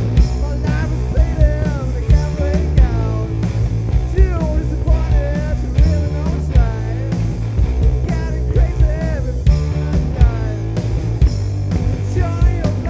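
Hard rock band playing live: a lead singer over a steady drum beat and bass.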